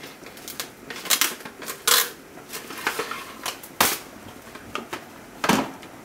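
A string of irregular sharp clicks and knocks, with louder knocks about two, four and five and a half seconds in.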